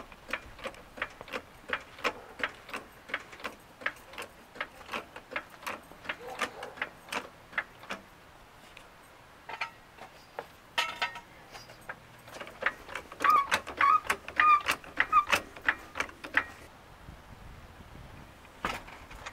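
Pittsburgh Automotive hydraulic floor jack being pumped by its long handle to raise a car, giving a steady run of mechanical clicks about three a second. After a pause comes a louder stretch of clicking mixed with short squeaks.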